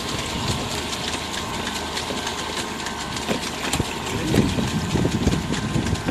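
An engine running steadily, with a rapid clicking clatter that grows louder and more uneven about two-thirds of the way in.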